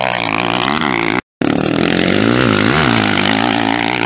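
Motocross bike engine running hard, its pitch dropping and climbing again several times as the throttle is rolled off and opened. The sound cuts out completely for a moment about a second in.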